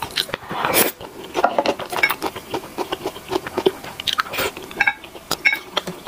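Close-miked eating of stir-fried instant noodles: bites and wet chewing in an irregular run, with a longer, noisier burst about half a second in.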